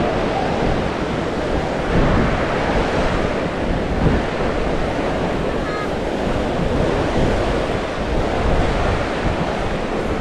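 Ocean surf breaking and washing up on a sandy beach in a steady rush that swells and ebbs, with wind rumbling on the microphone.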